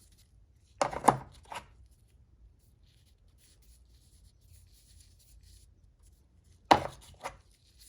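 Metal magnetic impact sockets clacking as they are handled: two short clusters of sharp clacks, about a second in and again near the end, the loudest with a brief metallic ring.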